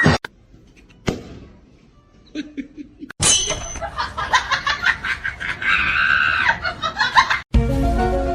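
A few faint clicks, then a person laughing in rapid bursts from about three seconds in, followed near the end by music with steady held notes.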